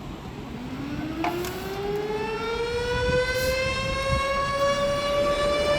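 A siren winding up: one pitched tone rising slowly and steadily in pitch while growing louder.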